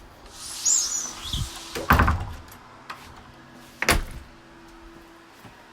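A door squeaks briefly, then bangs twice, about two seconds apart.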